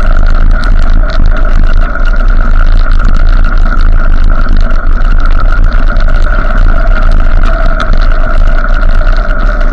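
Motorcycle riding at speed: the engine runs steadily under heavy wind rumble on the microphone.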